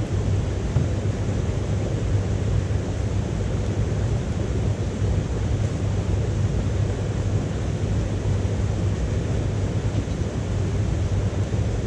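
Steady low rushing noise with a few faint crackles from a wood fire burning in a small titanium wood stove.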